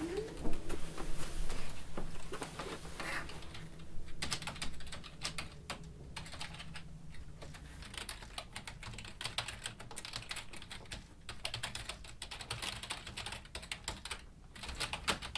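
Typing on a keyboard: a long run of quick, irregular key clicks.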